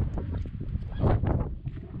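Hiking footsteps crunching and knocking on bare rock and gravel, irregular and uneven, with one louder scuff about a second in. Wind buffets the microphone underneath.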